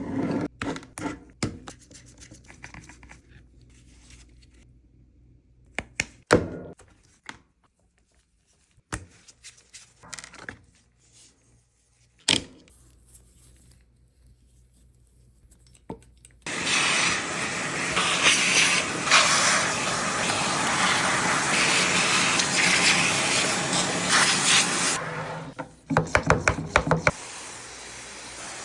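Small parts being handled, giving scattered clicks, knocks and rubbing, then a loud steady hiss lasting about eight seconds that cuts off suddenly, followed by a few more clicks.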